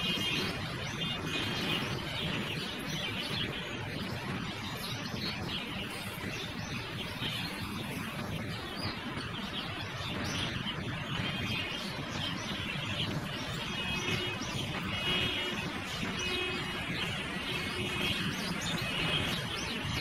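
Oriental magpie-robin calling: short clusters of clear, high chirping notes, repeated about once a second, over a steady hum of road traffic.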